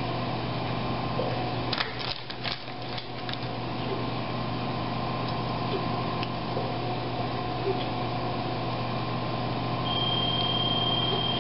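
Steady electrical hum from equipment, with a few light clicks of small metal surgical instruments about two seconds in, and a steady high-pitched electronic tone for the last second or so.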